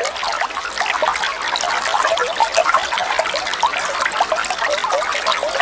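Water trickling and bubbling steadily, with a dense run of small gurgling blips.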